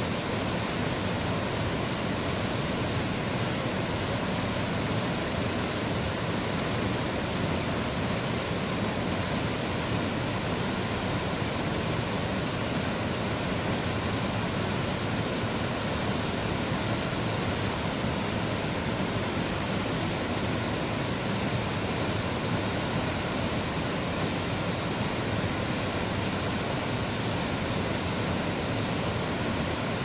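Minoh Falls, a tall waterfall, plunging into its pool: a steady, even rush of falling water with no change in strength.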